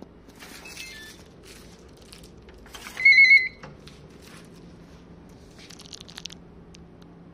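Glass-door digital lock sounding its electronic beeper: a quick falling run of short beeps about half a second in, then a loud warbling beep lasting about half a second around three seconds in. Faint clicks and a brief rattle follow near the end.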